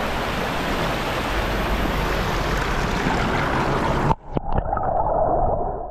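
Loud, steady rushing of water. About four seconds in it cuts off suddenly to a muffled, duller rushing with a couple of clicks, which stops just before the end.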